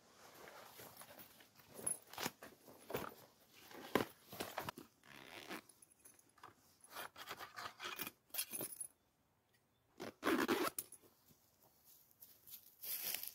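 A backpack being handled and hung up: fabric rustling, straps and buckles clinking, and scraping against bark in short bursts with pauses between them. A louder rustling scrape comes about ten seconds in.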